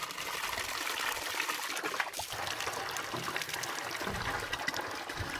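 Spring water pouring steadily from a hose into a plastic barrel and a large plastic water jug.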